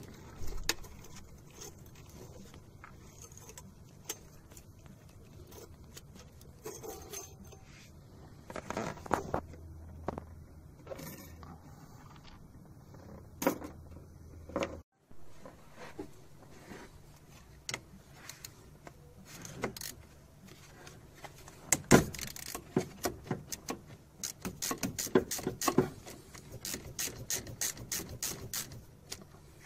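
Hand tools working on bolts at an engine's EGR valve: scattered metal clicks and scrapes, one sharp knock about two-thirds through, then a ratchet wrench clicking in quick runs near the end as a bolt is turned.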